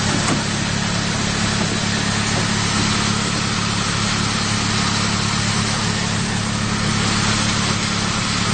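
Vehicle engine idling: a steady low hum under a constant hiss.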